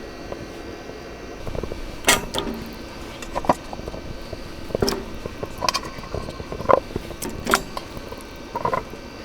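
Cookware and utensils clinking and knocking during meal preparation: about seven separate sharp knocks, some with a short metallic ring, over a steady low background.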